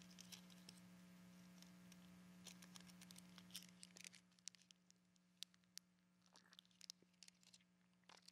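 Near silence: a faint steady hum, with scattered faint small clicks from a communion cup being handled by hand, mostly in the second half.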